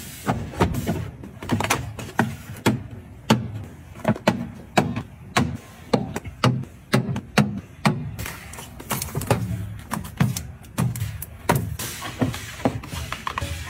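Irregular taps, clicks and light knocks of hard items and containers being handled and set down.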